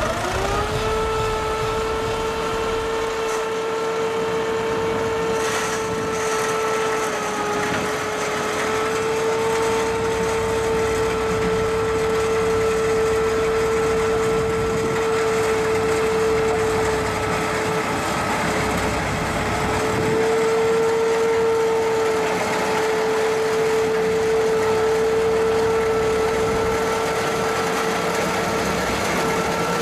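Tractor-drawn pumpkin harvester and its tractor running steadily in the field. The sound is a constant mechanical whine over engine noise, and its pitch sags slightly about a quarter of the way in.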